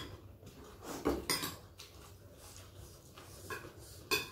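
Metal spoons clinking and scraping against ceramic bowls as people eat, a handful of separate short clinks with quieter gaps between.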